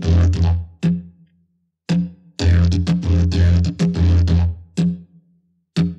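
Didgeridoo played in rhythmic phrases over a low drone, with short stabs and two brief pauses, the longer phrase in the middle.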